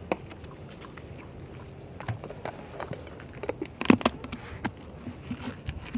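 Tomato-and-broth sauce simmering in a cast-iron skillet over a wood fire: a steady low hiss with scattered pops and crackles.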